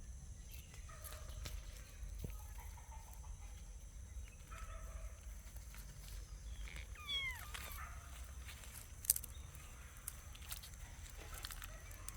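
Kittens mewing faintly now and then, the clearest a short mew falling in pitch about seven seconds in, with a sharp click near nine seconds.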